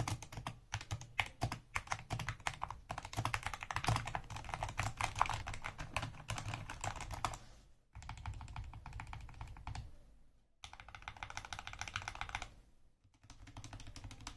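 Typing on a Skyloong SK64S 60% mechanical keyboard fitted with lubed Gateron optical red linear switches, foam- and tape-modded: fast runs of keystrokes broken by a few short pauses.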